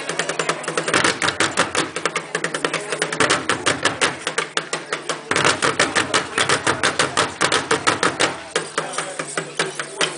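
Fast, steady drumming: a dense run of sharp drum strokes, about ten a second, with no break.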